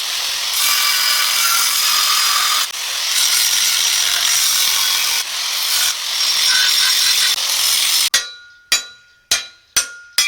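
Angle grinder with a thin cut-off wheel cutting steel angle iron, a loud, high-pitched steady grind that eases briefly a few times. It cuts off suddenly about eight seconds in, and then come five sharp metallic clinks with a short ring, about one every half second.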